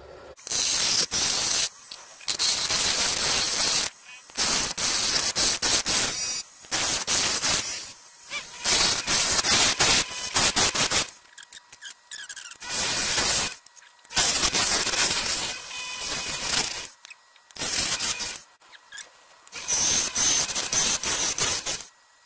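Woodturning gouge cutting a spinning persimmon blank on a lathe: repeated stretches of hissing, scraping cutting noise, each a second or two long, broken by short gaps.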